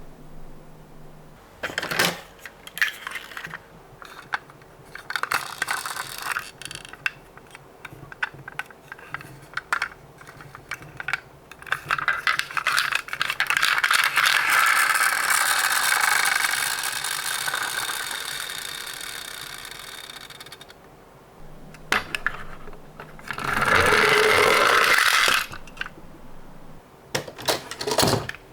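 Die-cast toy minicars clicking and clattering as they are handled and set down, with a long rolling rattle as a car runs down a slope about halfway through that fades away over several seconds, and a second short rolling run near the end.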